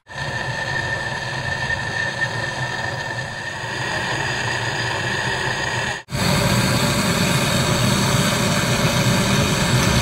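Handheld butane canister torch burning steadily, its flame hissing as it heats a copper refrigerant pipe joint for brazing. The sound cuts out for an instant about six seconds in, then comes back a little louder.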